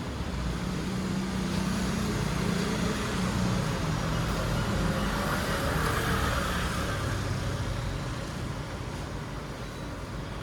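Motor vehicle engine passing by, its hum growing louder and then fading away over several seconds.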